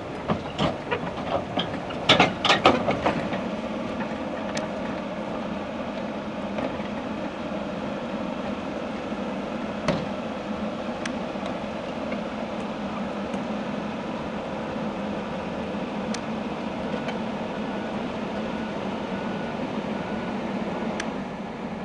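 Komatsu PC220LC-7 crawler excavator driving up onto a trailer deck: its steel tracks clank heavily in a quick run of knocks over the first three seconds while the diesel engine runs. Then it moves on steadily with the engine running, and a sharp click now and then.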